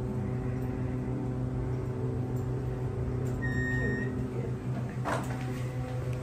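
KONE hydraulic elevator car travelling down with a steady low hum. About halfway through a single electronic arrival chime sounds as the car reaches the floor, and a short knock follows about a second and a half later.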